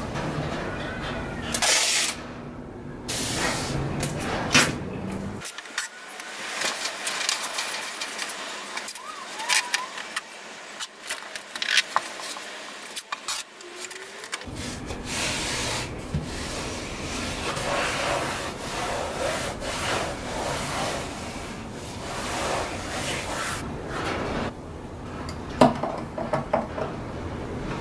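Hands rubbing and pressing masking paper and tape along the edge of a painted wooden lid, with scattered light clicks and taps.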